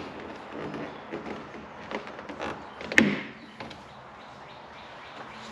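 Small knocks and scraping of hands and a tool working at the plastic trim on a car's door panel, with one sharp click about three seconds in.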